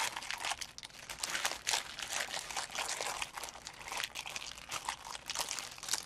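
Clear plastic bag of diamond-painting drill packets crinkling as hands handle and open it, a dense run of quick crackles.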